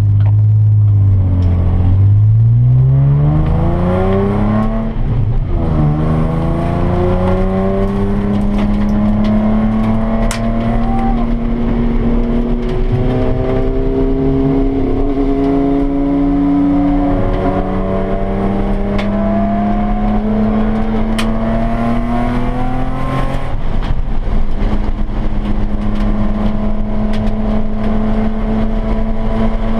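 Nissan 350Z's 3.5-litre V6 heard from inside the cabin, pulling hard on track with its pitch climbing. An upshift drops the note about five seconds in, then a long pull in the next gear follows. The throttle comes off about 23 seconds in and the engine settles to a steadier note.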